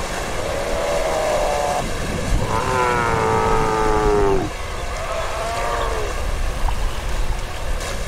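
Steller sea lions calling on a rock: three drawn-out, lion-like roars, the loudest about two and a half seconds in, each lasting one to two seconds, over a steady low wash of sea.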